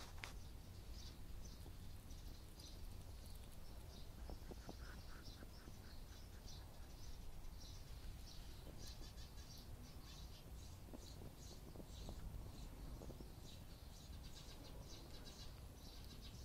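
Hedgehog chewing and smacking at food scraps: faint, quick, irregular wet clicks, several a second at times, over a low outdoor rumble.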